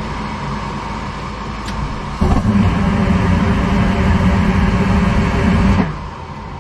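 Gas furnace's inducer fan running. About two seconds in, the burners fire up with a sudden, louder, deeper steady sound that lasts about three and a half seconds, then they shut off. This is a failed ignition attempt with burners that won't stay lit, which the owner suspects is caused by a dirty flame sensor.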